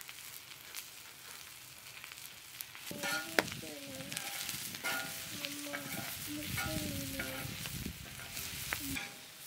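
Sliced carrots and green beans sizzling in oil on a flat iron griddle (tawa). From about three seconds in a metal spatula scrapes and turns them, and the sizzling grows louder.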